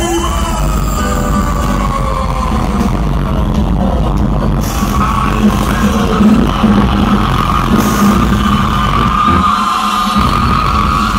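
A live regional Mexican band playing loudly without vocals, a tuba carrying the bass under stringed instruments.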